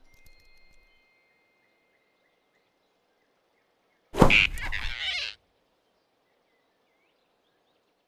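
Cartoon sound effect of a sudden snatch: a sharp whoosh with a thump about four seconds in, lasting a little over a second. Before it, faint forest ambience with a few thin high tones.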